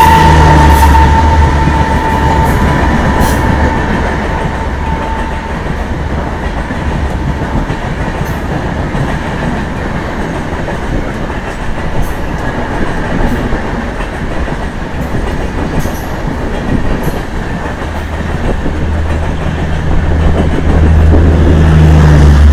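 Coaches of an electric-hauled Indian express train rolling past at speed, wheels clattering over rail joints with a steady rumble. A locomotive horn fades away over the first few seconds, and the low rumble swells louder again near the end.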